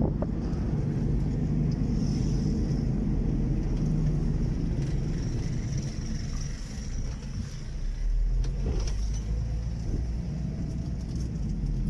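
A car driving, with a steady low rumble of engine and road noise that eases off briefly about seven seconds in.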